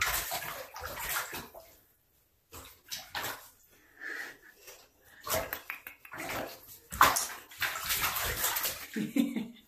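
Bathwater splashing and sloshing in irregular bursts as a wet beagle puppy scrambles in a shallow tub while being held and washed, with a short high whine from the puppy about four seconds in.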